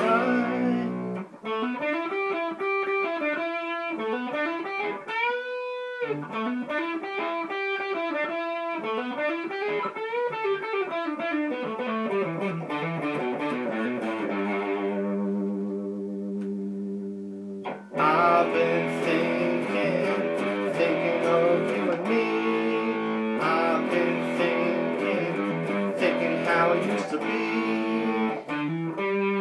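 Electric guitar solo in a blues-rock style: single notes that swoop up and back down in pitch for the first dozen seconds, then a chord left ringing and fading away. About eighteen seconds in, loud driven strumming and quick runs of notes take over.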